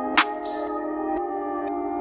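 Music: held, ringing chords with one sharp hit just after the start, followed by a brief hissing swish and faint ticks, and the chord shifting a little past halfway.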